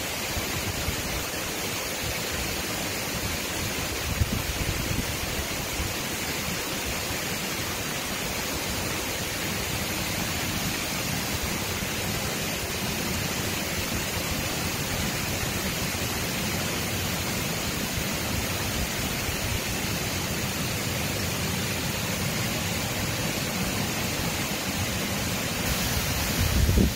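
Water spilling over a low concrete weir in a channel: a steady, even rushing. Near the end, wind buffets the microphone with a low rumble.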